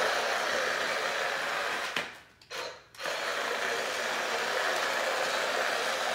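Small electric motor and gears of a remote-control toy robot whirring steadily as it drives across a hardwood floor. The whir cuts out twice briefly about two seconds in, then starts again.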